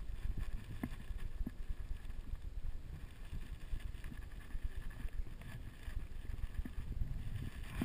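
Wind buffeting the microphone: a steady low rumble with a few faint knocks scattered through it.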